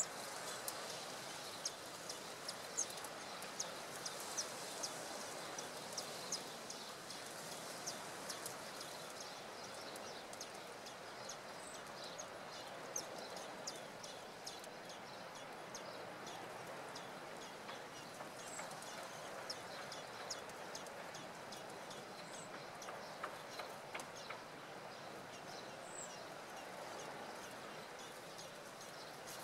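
Outdoor background: a steady soft rush with a run of short, high ticks, about two a second at first and thinning out after ten seconds or so, and a few brief high chirps later on.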